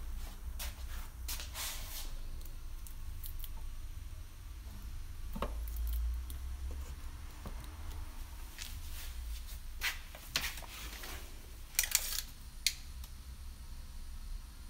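Round plastic tail lamps being handled and shifted on a steel bar: scattered light clicks, taps and glove rustles, with a few sharper clicks about ten to twelve seconds in, over a low steady hum.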